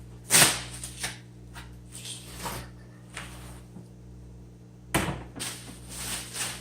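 Unboxing a kief sifter: a sharp knock about half a second in, a few lighter knocks and scrapes, then another knock about five seconds in followed by rustling as the box and its packaging are handled. A steady low hum runs underneath.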